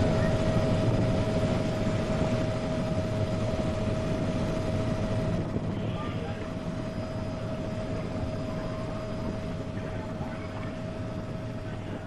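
Water of a small rocky stream rushing over stones, a steady noise that fades gradually. A thin steady tone runs beneath it.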